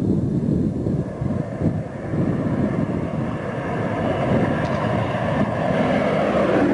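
A B-17 Flying Fortress's four Wright R-1820 Cyclone radial engines droning on a low pass, growing louder as the bomber approaches and loudest as it comes overhead near the end. Gusty wind buffets the microphone in the first couple of seconds.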